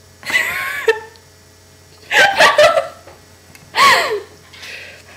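Short bursts of high-pitched laughter and gasping, three loud outbursts under a second each, the middle one in quick pulses, then a fainter one near the end.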